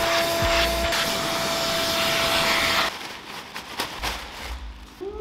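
Vacuum cleaner running, its hose sucking over the carpet of a car's footwell, with a steady motor whine. It stops about three seconds in, leaving quieter handling noise with a few soft knocks.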